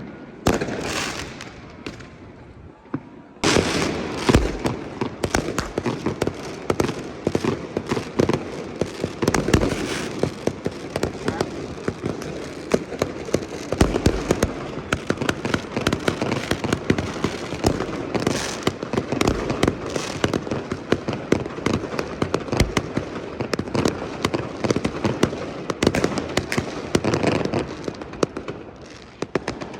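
New Year's fireworks going off, a dense crackling and popping with a few deep booms among them. The crackle thickens sharply about three and a half seconds in and keeps up after that.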